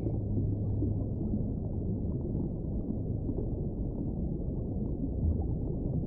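Low, dense underwater rumble of a whale recording, with a low steady whale moan that stops about a second in.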